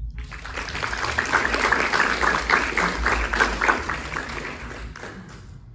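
Audience applauding, a dense patter of many hands clapping that starts right away and tapers off about five seconds in.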